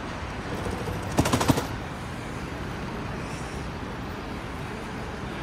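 Steady outdoor traffic and wind noise, with a quick rattle of about half a dozen sharp clicks a little over a second in.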